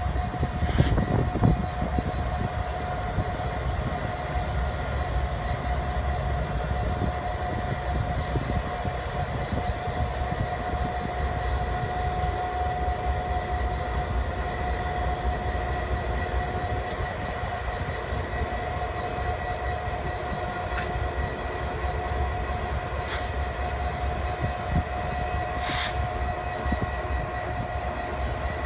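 Norfolk Southern freight train passing close by, several diesel-electric locomotives running in a steady drone with a held tone throughout. A few brief sharp sounds from the train, two of them close together near the end.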